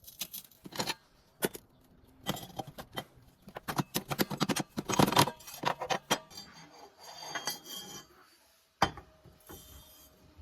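Metal clinking and clattering, a quick run of sharp knocks that thins out, then one sharp knock near the end.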